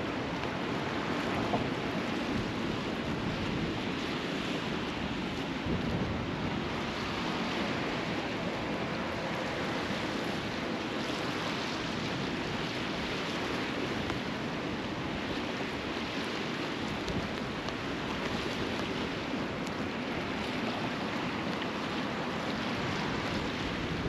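Steady rush of sea surf mixed with wind, an even noise that swells gently without pause.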